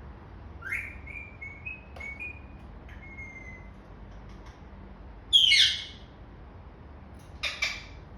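Indian ringneck parakeet calling: a run of short whistled chirps, then a loud harsh squawk about five seconds in and two more rough calls near the end.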